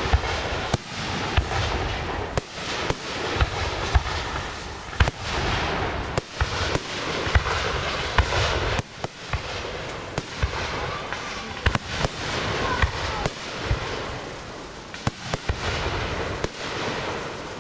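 Aerial firework shells bursting one after another: sharp bangs about every half second to a second, irregularly spaced, over a continuous rushing background noise.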